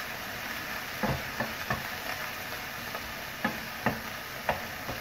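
Chicken pieces sizzling in hot oil in a frying pan while a wooden spatula stirs them, scraping and knocking against the pan. There are about six sharp knocks, the loudest about halfway through and shortly after.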